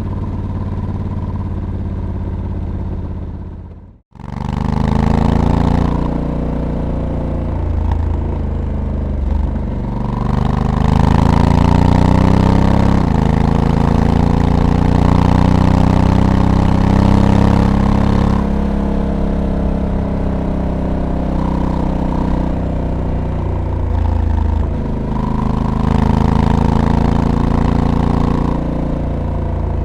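Honda Africa Twin DCT's 1084 cc parallel-twin engine under way, its pitch climbing and falling with the revs. The dual-clutch gearbox shifts on its own, with several quick drops in pitch as it changes gear. The sound cuts out completely for a moment about four seconds in, then the engine comes back pulling hard.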